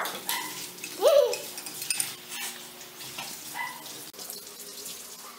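Metal fork clinking and scraping on a ceramic plate of spicy noodles, with a few short pitched vocal sounds from the eater, the loudest about a second in.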